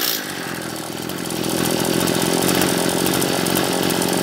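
Kawasaki TJ27 brush cutter's 27cc, 34 mm bore two-stroke engine coming down from a rev as it begins, then idling steadily.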